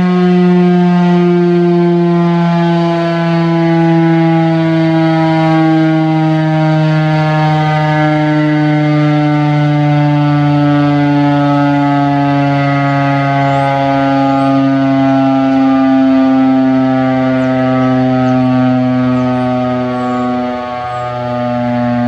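Federal Signal STH-10 outdoor warning siren sounding a steady test tone, its pitch slowly sinking lower, with a brief dip in loudness near the end.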